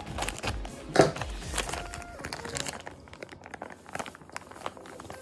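Plastic flour bag crinkling and rustling in the hands as it is snipped open with scissors and tipped to pour rice flour into a bowl. There is a sharp, loud crackle about a second in, and the handling gets quieter in the second half.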